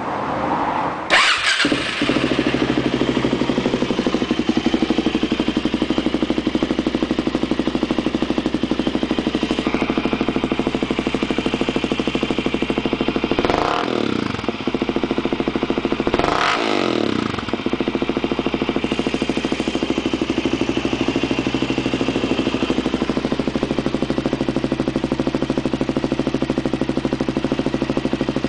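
Suzuki LTZ400 quad's single-cylinder four-stroke engine, fitted with a Big Gun Evo R aftermarket exhaust, starting about a second in and settling to idle. Midway it is blipped twice, rising and falling in pitch, about three seconds apart, then returns to a steady idle.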